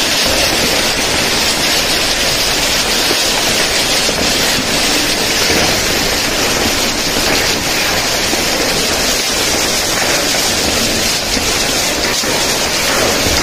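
Hail pelting down hard and steadily, a dense unbroken hiss of stones striking the ground and building.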